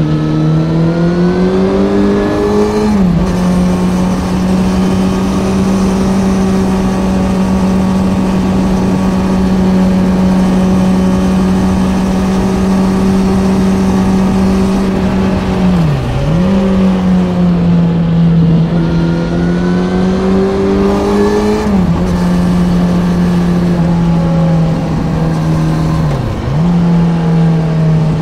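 Kawasaki Z900's inline-four engine through an Ixil SX1 full exhaust system under way: it climbs in pitch for the first few seconds and drops sharply at an upshift, then holds a steady pitch. About two-thirds of the way in it dips briefly and picks up, climbs again to another upshift, and near the end dips and recovers once more.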